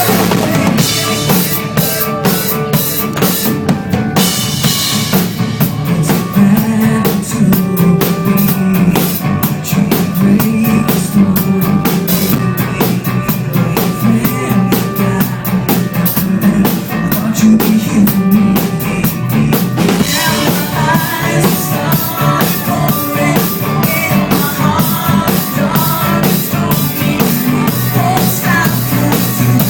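Pop-rock band playing live, with a driving drum-kit beat of bass drum, snare and rimshots over bass and guitar. The drum hits are densest for the first two-thirds; from about twenty seconds in, a wavering melodic line comes forward.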